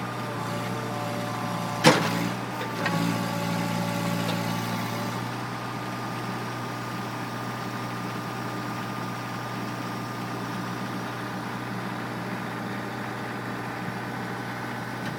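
Hydraulic excavator engine running steadily while the machine is worked, its pitch shifting a little in the first few seconds. A sharp metallic clank about two seconds in, the loudest sound, and a smaller knock about a second later.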